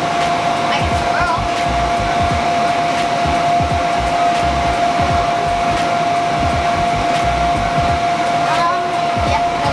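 Electric inflation blower of a bounce house running steadily with a constant whine, with soft, irregular thuds of someone jumping on the inflatable floor.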